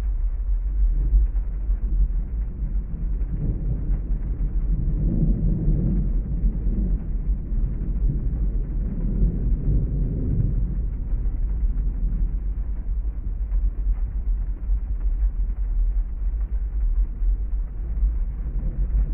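Thunderstorm ambience: a steady deep rumble with two long rolls of distant thunder swelling and fading, one about four seconds in and another about nine seconds in.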